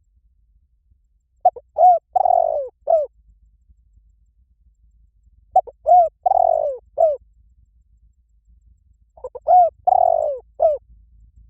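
Spotted dove cooing in the liu tan coo pattern: three matching phrases about four seconds apart. Each phrase is a quick run of short hooting notes with one longer note near its end.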